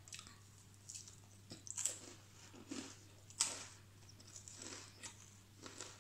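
A person chewing and crunching a biscuit, close to the microphone, with irregular crunches about once a second.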